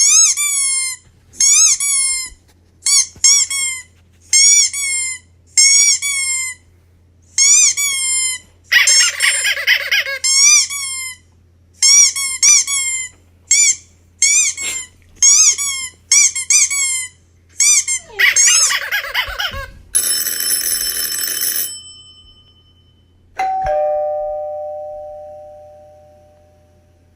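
A string of played sound effects: many short, high squeaky chirps in quick groups, broken by two hissing bursts. Then a dense buzzing ring for about two seconds, and last a single bell-like ding that fades slowly.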